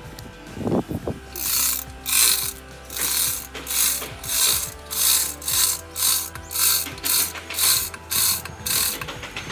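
Manual chain hoist ratcheting as its hand chain is pulled hand over hand, giving a steady rhythm of about two clattering pulses a second while it strains to lift a tree stump out of the ground.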